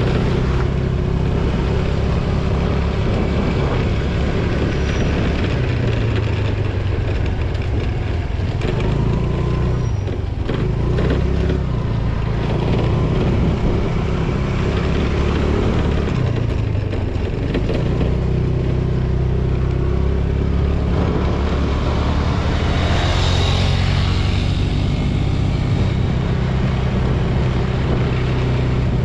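TVS Jupiter scooter's single-cylinder engine running under way, its pitch rising and falling with speed over a steady low rumble. About three-quarters of the way through, a louder rushing sound swells and fades.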